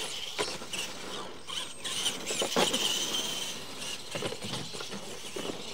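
Electric RC monster trucks racing on dirt: motors and gears whining high, tires scrabbling, with a few sharp thumps as the trucks hit and land off the ramps.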